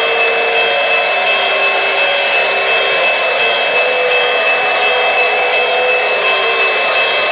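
Lionel O-gauge Pennsylvania Railroad S2 steam turbine locomotive's sound system giving a steady rushing hiss with a high whine, the turbine sound at a standstill. Lower hums come and go under it.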